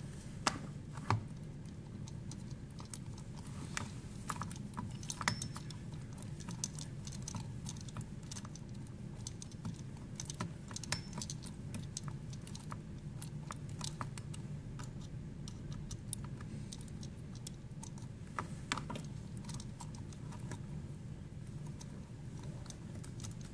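Scattered small clicks and taps of a hand screwdriver driving screws into a plastic can-opener housing, over a steady low hum.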